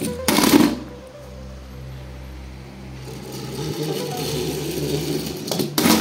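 Die-cast toy cars dropped into a clear plastic bucket, clattering onto the other toys, once about half a second in and again near the end, over background music.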